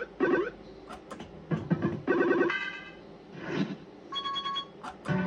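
Barcrest Pac-Man fruit machine's electronic sound effects: a run of short chiming beeps and jingle tones, with a held multi-note beep about two and a half seconds in and another about four seconds in.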